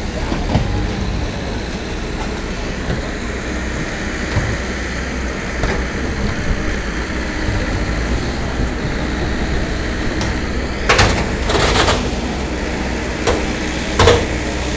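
Heavy diesel engines of mobile cranes running steadily under load while lifting an overturned truck. A few short, loud noisy bursts stand out about two-thirds of the way through and again near the end.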